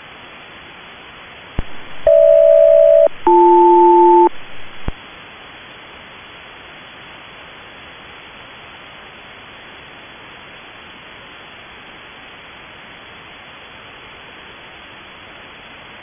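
HF single-sideband radio hiss carrying a SELCAL call: two one-second bursts of two tones sounded together, with a short gap between them and a click before and after. The tone pairs spell the SELCAL code GH-BL, which alerts the receiving aircraft's radio that it is being called.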